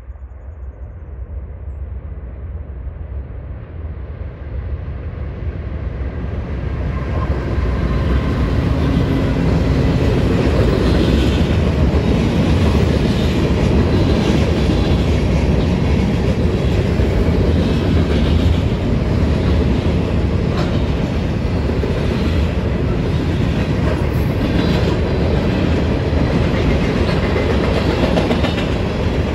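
Freight train of boxcars, tank cars and covered hoppers rolling past, steel wheels clacking over the rail joints. It grows louder over the first several seconds, then holds steady.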